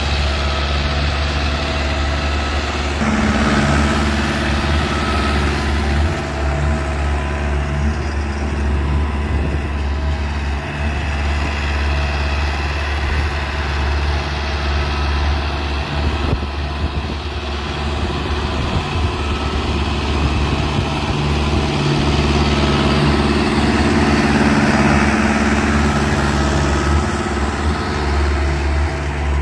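Mahindra Novo 655 4WD tractor's diesel engine running steadily, swelling louder for a few seconds near the start and again in the second half.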